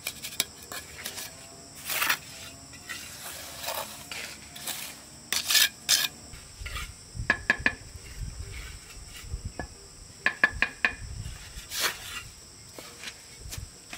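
Scattered clinks, taps and scrapes of hard objects being handled, with a few soft thuds in the second half, over a faint steady chirring of insects.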